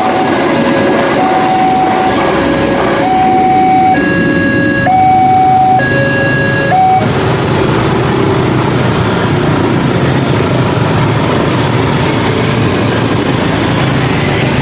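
Railway level-crossing warning alarm sounding an alternating two-tone signal, its tones held longer before it cuts off about seven seconds in. After that comes a steady rushing noise with a low rumble, a train passing the crossing.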